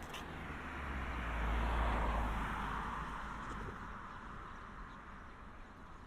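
A road vehicle passing by: a low rumble and a hiss of tyre noise swell to a peak about two seconds in, then slowly fade away.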